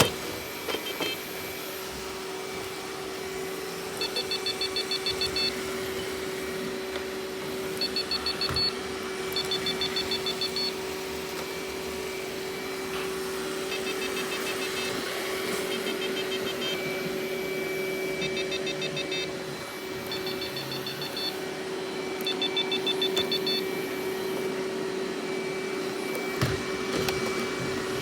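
Robot vacuum running, with a steady motor hum. Several times a burst of rapid high-pitched chirping, about a second or two long, sounds over it.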